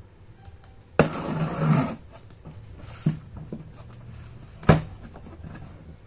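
Hands handling objects: a sudden scraping rustle lasting about a second, then a light click and a sharp knock.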